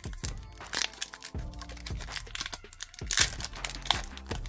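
Foil wrapper of a Pokémon TCG Fusion Strike booster pack crinkling and tearing as it is ripped open by hand, in a run of quick crackles that is loudest about three seconds in.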